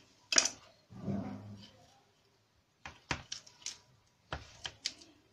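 Kitchen knife chopping a boiled chicken leg quarter into pieces on a plastic cutting board. There is one sharp knock about half a second in, then, from about three seconds, a quick irregular run of clicks and knocks as the blade works through the joint and strikes the board.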